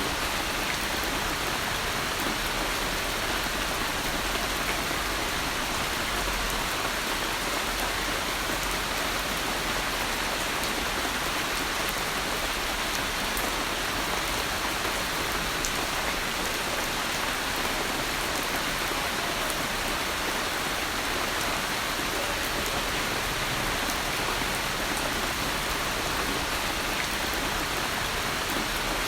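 Steady rainfall, an even hiss of rain on a surface with faint fine drop ticks, not changing in strength.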